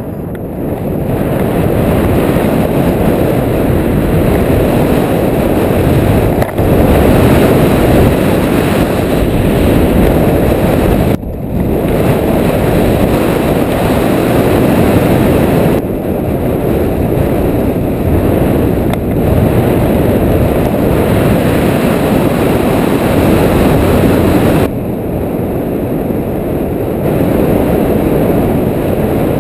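Wind rushing over the microphone of a camera mounted on a hang glider's wing in flight: a loud, steady, low rush of wind noise, rising about a second in, with a brief break about eleven seconds in.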